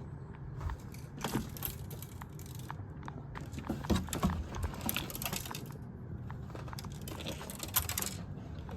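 A loose part rattling inside a mixer's casing as the unit is tilted and shaken: irregular clicks and knocks, in louder clusters a few times. The rattle is the sign of something that came loose inside during shipping from insufficient packaging.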